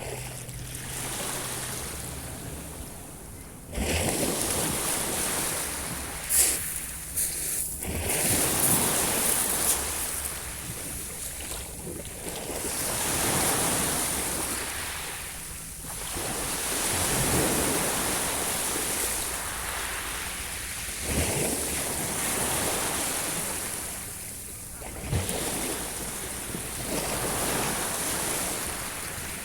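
Sea waves breaking and washing onto the shore in repeated surges every few seconds, with a few sharper splashes.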